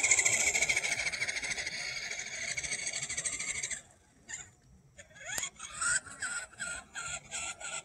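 Radio-controlled toy truck's small electric motor and gears whining steadily as it drives, cutting out a little before halfway. Near the end come a run of short, repeated whirs as the throttle is pulsed.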